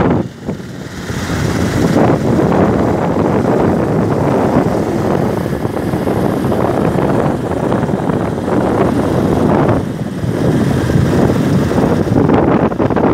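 Heavy wind rushing over the microphone of a phone carried on a moving motorcycle, mixed with the motorcycles' engines and road noise. There is a brief dip about half a second in.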